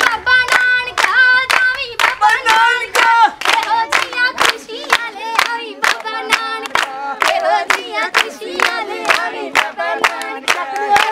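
A group of voices singing together to steady rhythmic hand clapping, about three claps a second.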